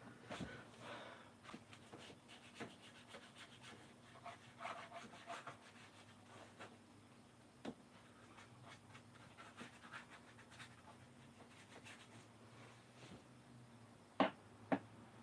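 Faint scratchy rubbing of a paintbrush working on wood panelling, with scattered light taps and two sharper knocks near the end.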